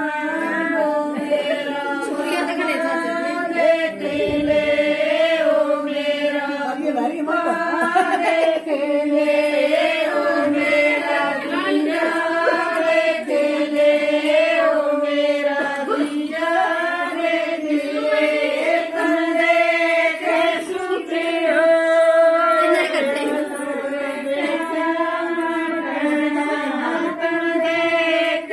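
A group of women singing a Haryanvi jakdi folk song together, voices only with no instruments or beat.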